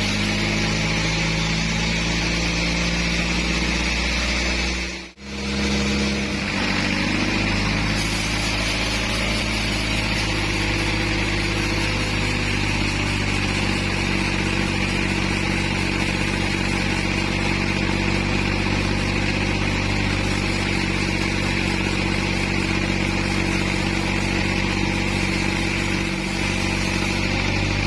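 Engine-driven band sawmill running steadily as it saws a trembesi (rain tree) log, a constant engine drone under the whine of the blade. The sound cuts out for a moment about five seconds in, then carries on unchanged.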